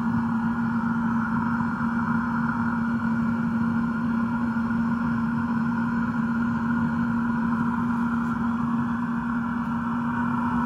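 Eberspächer D1LC diesel air heater running steadily on test: an even hum with a constant low tone and a steady rush of air from its fan and burner, a sign that the salvaged unit has started and is running normally.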